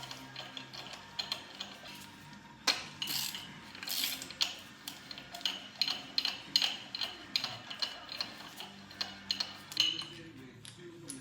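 Ratchet wrench clicking in irregular runs as spark plugs are loosened from a 5.7 Hemi cylinder head, with light metal clinks between.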